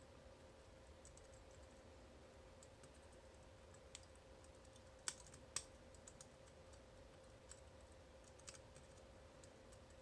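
Faint, scattered small metal clicks and ticks from a tubular lock impressioning tool being worked as a pick in a tubular lock, with two sharper clicks about halfway through, over a faint steady hum.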